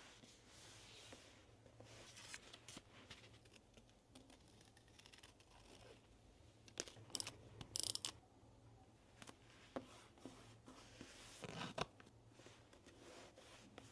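Quiet paper-crafting sounds for a journal collage: paper handled and rustled with small taps, and short crisp tearing sounds, the loudest just before the middle and again near the end.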